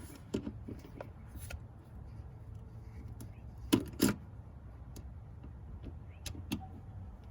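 Hand tools and metal parts clicking and knocking while hose clamps are undone and an oil catch can is worked off its mount, with two louder knocks close together about four seconds in, over a steady low rumble.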